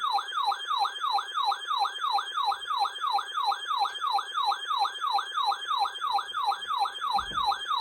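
Electronic siren-style alert tone: a fast, repeating downward-sweeping wail, about three and a half sweeps a second, steady in rhythm and level.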